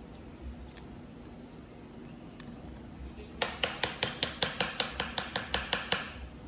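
A rapid, even run of sharp clicks, about six a second, starting about three and a half seconds in and stopping after about two and a half seconds.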